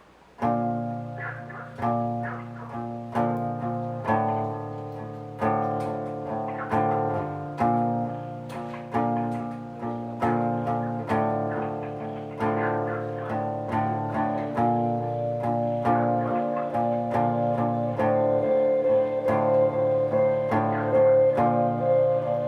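Guitar playing: plucked chords that ring out and die away, struck about once a second over a steady bass line, growing louder about 18 seconds in.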